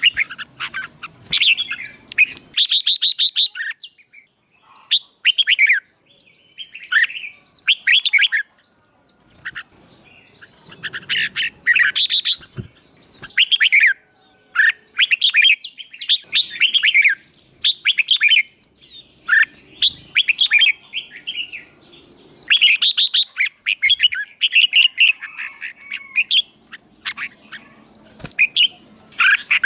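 Songbird singing for competition training: fast chirping and trilling phrases, one after another with only short breaks.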